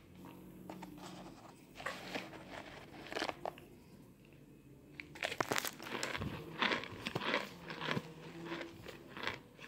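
Compressed cornstarch (baby powder) chunks crunching in rapid crisp crackles. A short group comes about two seconds in, then a longer, louder run from about five seconds until near the end.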